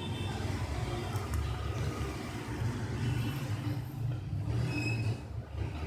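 Steady low rumble, with faint short high tones now and then.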